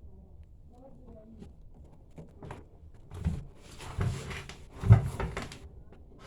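A series of knocks and clunks, as of objects being handled and set down, beginning about three seconds in, with the loudest near five seconds.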